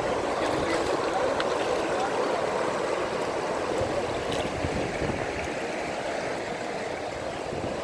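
Fast-flowing floodwater rushing steadily.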